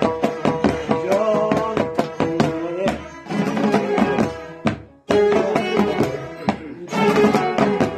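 Afghan folk instrumental: a dambura strummed in a fast, even rhythm while a ghichak spike fiddle bows the melody over it. The music breaks off for a moment about five seconds in, then resumes.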